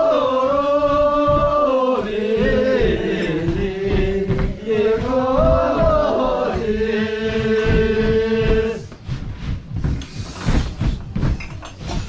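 A line of Sherpa dancers singing a dance song together in unison, in long held notes that slide from one pitch to the next, with their feet stamping on the floor underneath. The singing breaks off about nine seconds in, leaving only the stamping steps.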